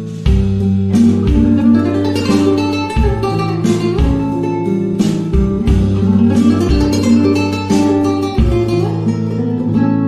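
Background music led by plucked acoustic guitar, with regular picked notes over sustained low notes.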